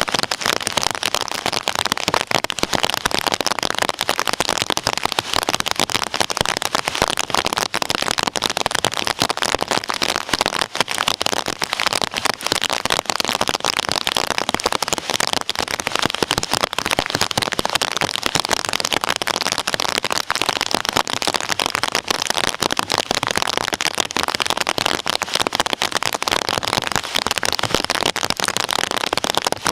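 Heavy rain falling steadily: a dense, even crackle of drops with no thunder in it.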